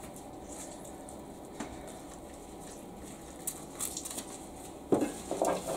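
Shredded cabbage and carrot slaw being squeezed and tossed by gloved hands in a stainless-steel bowl: mostly quiet, with a few soft clicks and a louder patch of wet rustling about five seconds in.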